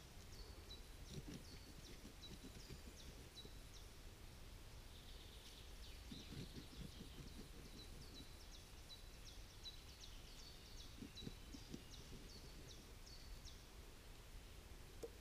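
Faint scraping and rustling as a spruce root is drawn through a split stick to strip off its bark, in a few short spells. Behind it a small bird repeats short, high chirps two or three times a second.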